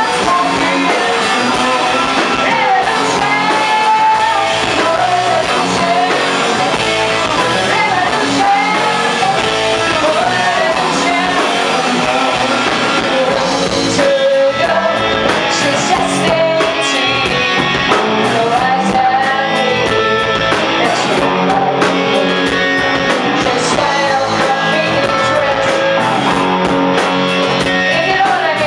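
Live rock band playing: a woman's lead vocal over electric guitars, bass guitar and drums, continuous throughout.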